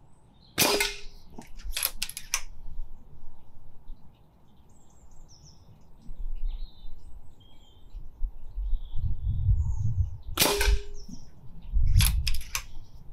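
Two shots from a silenced Brocock Sahara XR PCP air rifle, about ten seconds apart. Each is a sharp crack followed by a few quick clicks. Birds chirp faintly in between, and wind rumbles on the microphone in the second half.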